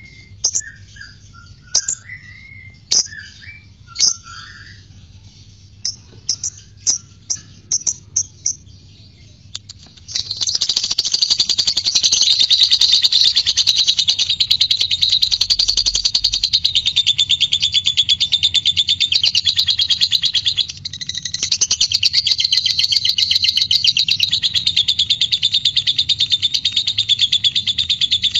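A lovebird gives scattered sharp chirps and short warbles. About ten seconds in it breaks into a long, unbroken, rapid chatter: the drawn-out chattering song that keepers call ngekek. The chatter breaks off briefly about two-thirds of the way through, then goes on.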